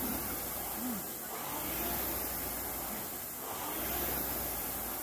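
Indoor rowing machine's air-resistance fan flywheel whooshing, swelling with each drive stroke about every two seconds.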